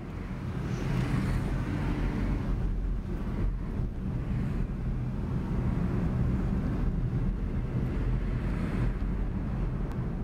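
Steady low rumble of a car running, heard from inside the cabin.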